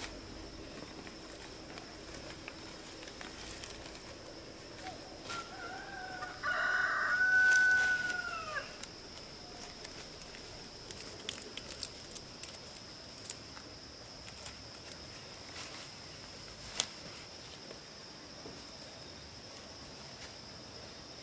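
A rooster crows once, about six seconds in: a single call of about two seconds that holds level, then drops at the end. Under it runs a steady high insect trill, with occasional light snaps and rustles of vegetable stems being handled.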